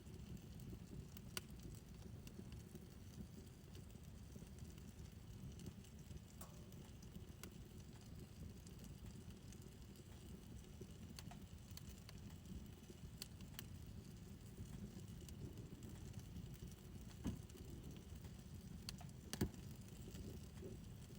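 Fire burning in a fire pit: faint crackling, with scattered sharp pops over a steady low rumble, and two louder pops near the end.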